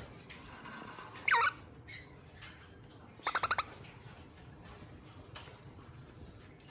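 Eastern rosella calling: one short call dropping in pitch about a second in, then a quick run of about five short notes a couple of seconds later.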